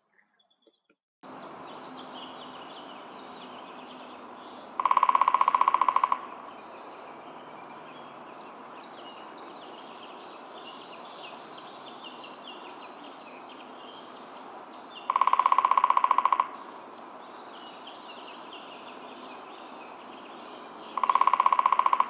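Hairy woodpecker drumming on wood: three loud, rapid drum rolls of about a second each, spaced several seconds apart, over a steady outdoor hiss with faint chirps of other birds.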